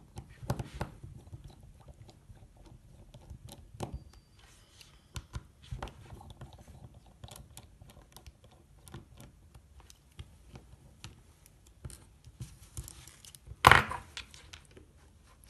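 Precision screwdriver working the small screws out of the back of a Samsung Galaxy S3: scattered faint clicks and scrapes of the bit on the screw heads and plastic, with one louder knock near the end.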